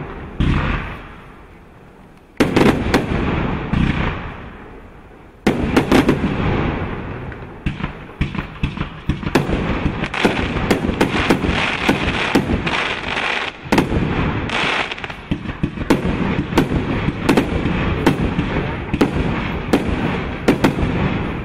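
Pyramatic 152-shot 'PRO F3' firework cake firing its 30 mm shots: sharp bangs in a few separate volleys over the first few seconds, then a dense rapid barrage of shots from about eight seconds in, dying down near the end.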